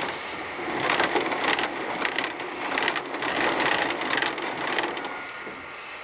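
Chainsaw mill's height-adjustment mechanism being worked to raise the bar on its threaded posts, with the saw not running. It gives a run of rough mechanical clicking and grinding strokes, about three a second, that stops about five seconds in.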